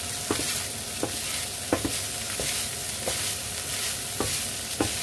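Ground pork and diced peppers sizzling in a nonstick frying pan while a wooden spatula stirs them, knocking and scraping against the pan about once every two-thirds of a second over a steady hiss of frying.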